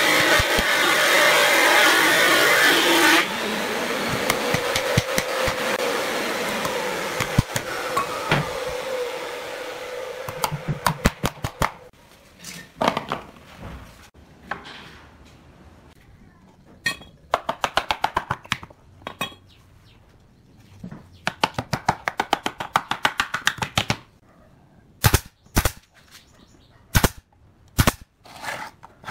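A loud rushing noise for the first few seconds that fades away, then bursts of rapid knocks on the pine wood, and near the end single sharp shots of a pneumatic nail gun driving nails into the pallet-wood box.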